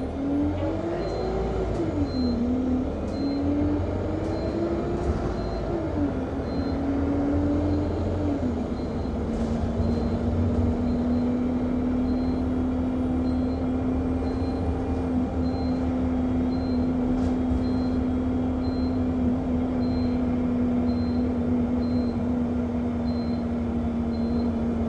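Diesel engine of an Alexander Dennis Enviro200 MMC bus heard from inside the cabin, its pitch rising and dropping at each gear change as it pulls away, then running steadily after about eight seconds. A short high electronic beep repeats about once a second throughout, the bus's non-stop beeping.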